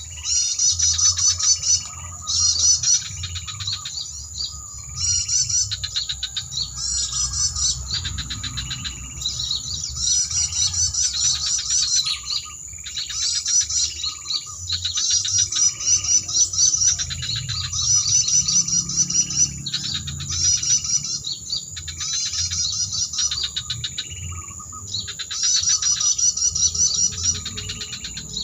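Bird-lure recording of small birds chirping, played through an MP3 player: fast trilling chirps in repeated bursts of a second or two with short gaps between, as in a looped lure call.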